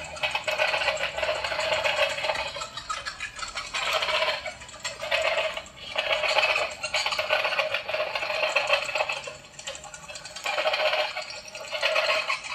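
Morris Costumes Slashing Bat animatronic running its triggered cycle: its built-in speaker plays very loud, thin-sounding sound effects that swell and fall every second or two, with a mechanical rattle as the motor flaps the wings and turns the head.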